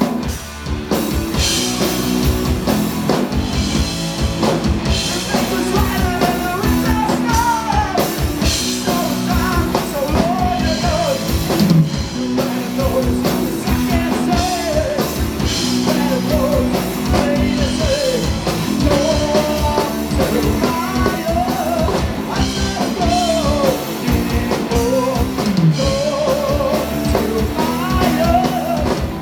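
Rock band playing live, with electric guitars, bass and a drum kit. A lead vocalist sings over it from about six seconds in.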